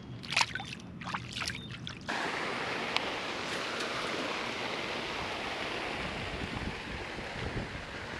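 A few light clicks and handling rustles, then about two seconds in a sudden switch to a steady rushing hiss of wind and water.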